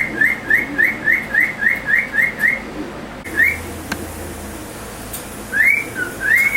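Cockatiel whistling: a fast run of short, identical rising notes, about four a second, then after a pause a single note, and near the end two longer whistles that rise and fall.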